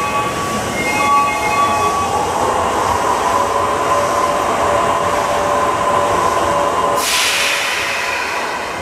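Electric commuter train's VVVF inverter whine as it pulls out along an underground platform: steady tones that step and shift in pitch over the running noise of the cars. A sudden hiss comes in about seven seconds in.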